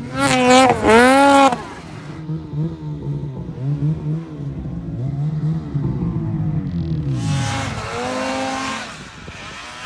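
Snowmobile engines revving hard: a loud, high rev in the first second and a half, a lower, steadier run after it, and another hard rev about seven seconds in, its pitch dipping and climbing again.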